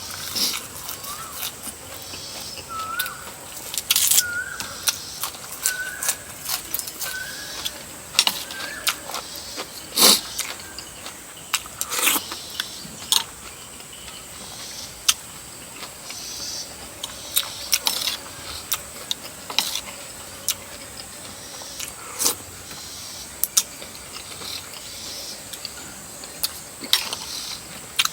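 Close-up eating sounds of gnawing and chewing stewed chicken feet: irregular sharp clicks and wet smacks, one every second or two.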